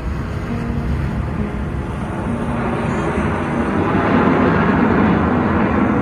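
A passenger cruise boat under way: a steady low engine drone with water rushing along the hull, the rushing growing a little louder in the second half.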